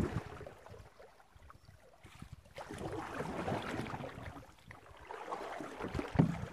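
Canoe paddles dipping and pulling through river water, splashing in an uneven rhythm, with a low thump near the end.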